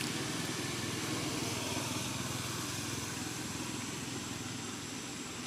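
A motor engine running steadily, easing off slightly near the end.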